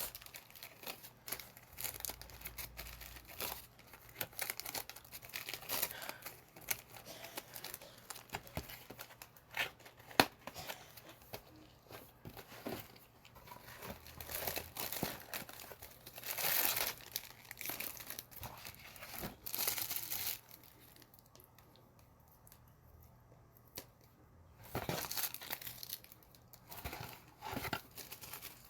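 Foil card-pack wrappers crinkling and tearing as packs are opened and handled, in irregular rustles with a short quiet lull past the middle.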